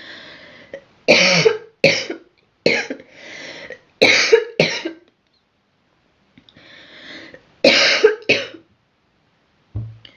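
A girl coughing: a fit of about five sharp coughs, a short pause, then two more coughs, with quieter breaths between.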